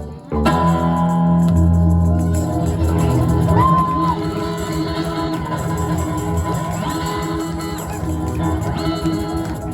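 Live band music: a held full-band chord on guitar and bass ringing on, with shouts from the audience over it.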